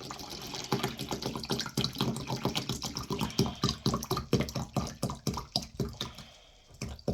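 Water gurgling and sloshing in quick irregular pulses as the wet vac takes in another batch of water, tailing off about six and a half seconds in.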